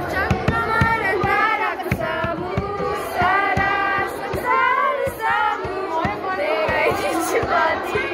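Music: singing voices over a steady rhythmic beat.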